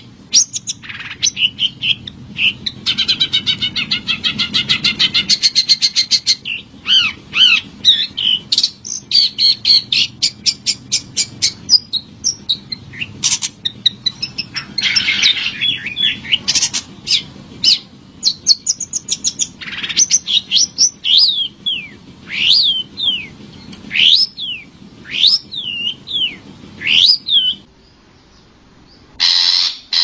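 Long-tailed shrike singing a varied song: a fast trill of repeated notes, harsh chattering notes, then loud whistled notes that swoop up and down. The song stops shortly before the end.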